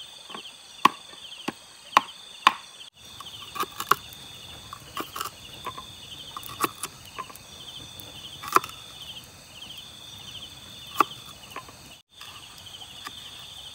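Knife chopping garlic and green vegetables on a small wooden cutting board: irregular sharp knocks of the blade against the board, a few much louder than the rest. A steady, pulsing insect chorus goes on underneath.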